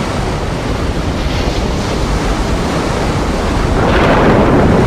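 Rough, stormy sea: waves breaking and wind rushing in a steady, loud wash of noise that swells louder near the end.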